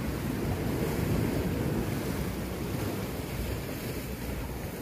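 Sea waves washing and breaking against shoreline rocks, a steady surging wash, with wind buffeting the microphone. The surge swells in the first couple of seconds and then eases slightly.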